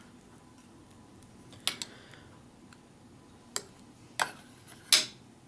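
A few short, sharp crackles and clicks, about four in all, the loudest near the end: a piece of Wasa crispbread being handled and broken over a plastic food tray.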